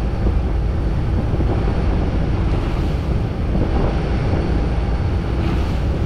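Rough sea water rushing and splashing along a moving boat's hull, with the boat's engine running beneath and wind buffeting the microphone. A wave slaps up against the hull near the end.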